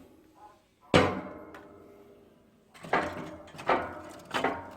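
Firewood logs knocking as they are set into a wood-burning fireplace: one loud knock about a second in, then three more in quick succession near the end, each with a short ringing tail.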